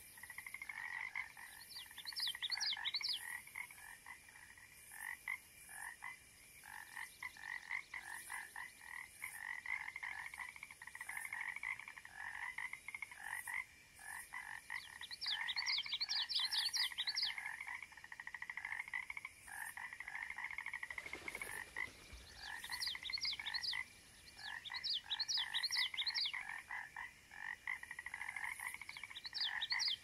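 A chorus of frogs calling: dense, rapidly repeated pulsed calls throughout, with short bursts of higher chirps joining in several times.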